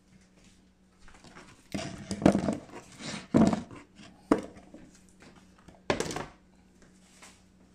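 Chunks of cut bitter gourd scraped off a wooden cutting board and dropped into a light plastic bowl: a couple of seconds of clattering and knocking, then a single sharp knock and one more short clatter.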